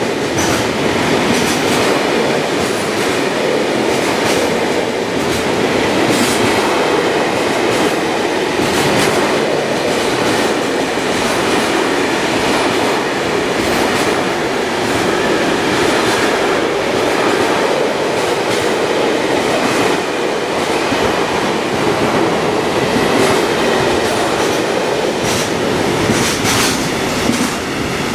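Freight train of container and swap-body wagons rolling past on the nearest track: a steady rumble of wheels on rail with scattered clicks over the rail joints. The sound drops off right at the end as the last wagons go by.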